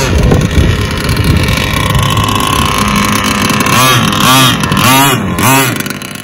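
Enforcer Stingray RC hydroplane's two-stroke engine running flat out with a steady high whine, then, from about four seconds in, revved up and down several times in quick blips as the boat comes off the plane.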